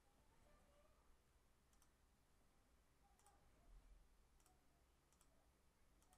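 Computer mouse clicking a few times, faint and spaced a second or so apart, over near silence.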